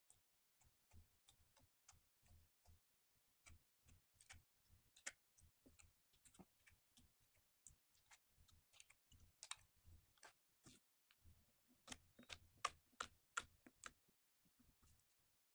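Slime being squished and stretched by hand: soft, irregular sticky clicks and small pops. They grow denser and louder near the end.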